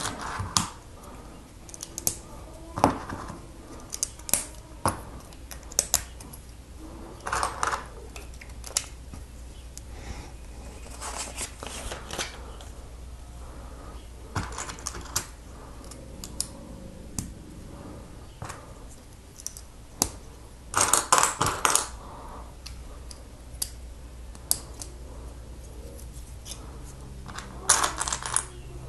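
Plastic Lego pieces being handled and snapped together: scattered sharp clicks, with a few clattering spells of about a second each.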